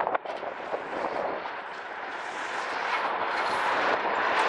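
Tatra KT4D trams, two coupled, approaching and passing close by on street track: the rolling noise of steel wheels on the rails grows steadily louder. A sharp knock comes just after the start.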